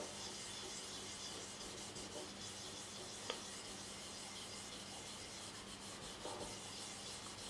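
Faint, steady rubbing of a finger spreading chromium oxide paste over the leather of a paddle strop, working the abrasive in evenly. A small click about three seconds in.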